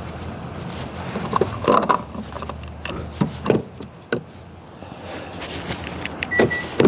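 Scattered clicks and knocks of a gloved hand working a car's fuel filler cap and fuel door, with a short high squeak near the end.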